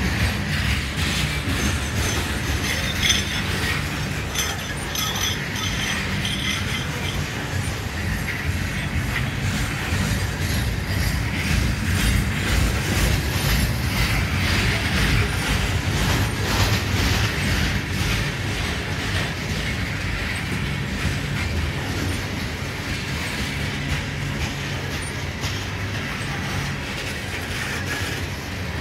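Coal hopper cars of a freight train rolling past close by: a steady rumble and rattle of steel wheels on the rails, with a faint high wheel squeal a few seconds in.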